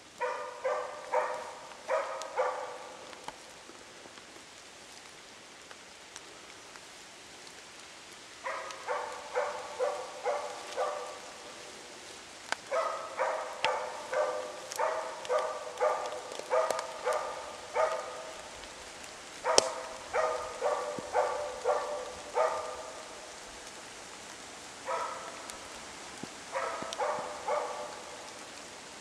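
Moose-hunting dog giving bay barks (ståndskall) at a moose cow and calf it is holding at bay. The barks come in bouts, about two a second, broken by pauses of a few seconds.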